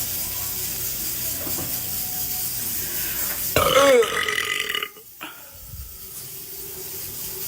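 A woman's single long, loud belch about halfway through, falling in pitch, over a steady background hiss.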